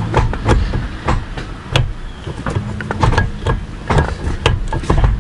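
Hybrid Racing short shifter being worked through the gears, its linkage and cables giving a run of irregular clicks and clunks, several a second, as the lever knocks from gate to gate.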